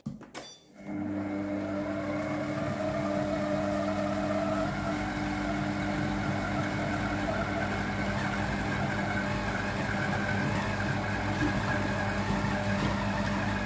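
Silvercrest Monsieur Cuisine Edition Plus kitchen machine starting up about a second in and running steadily on its kneading program, its motor turning the blade through dough in the stainless-steel bowl: an even motor hum with a wavering whir above it.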